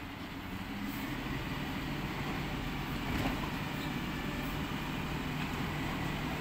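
Mercedes-Benz Econic side-loader recycling truck running at the kerb while its hydraulic arm grabs a wheelie bin and lifts it up toward the hopper. The engine hum grows slightly louder about a second in, with a faint knock around three seconds.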